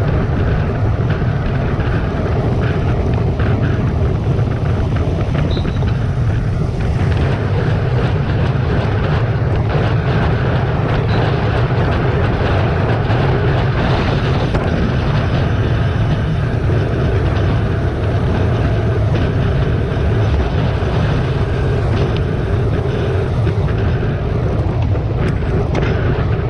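Steady wind noise rushing over the microphone of a camera mounted on a road bike moving at about 40 to 53 km/h, with the low rumble of tyres on the asphalt.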